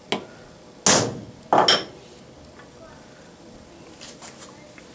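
Brass hammer rapping a metal cap seated on two transfer screws: a light tap, then two sharp blows about two thirds of a second apart, the second ringing briefly. The blows drive the screws' points into the cap, marking the hole positions. A few faint clicks from handling the part follow.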